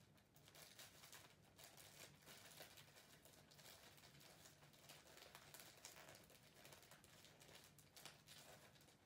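Faint rustling and crinkling of wrapping paper being handled and folded around a present, with scattered small handling taps, over a faint steady low hum.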